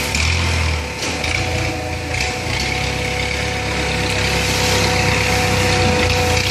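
Hydraulic baler running: a steady machine hum with a constant whine and a low drone under a broad hiss.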